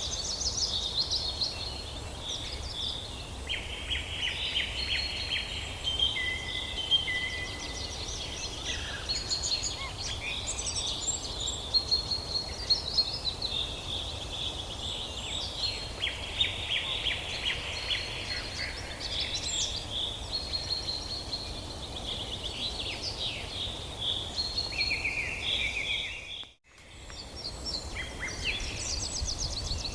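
Several songbirds singing at once, with overlapping chirps and fast trills, over a steady low rumble. About 26 seconds in, everything cuts out briefly and then returns.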